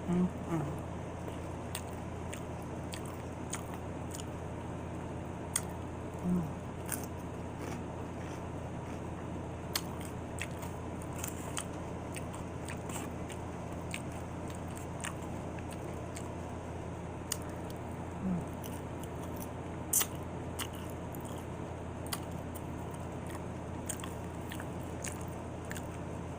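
Close-miked chewing of chili cheese nachos with the mouth: scattered sharp crunches and clicks, and three short low hums, over a steady low background hum.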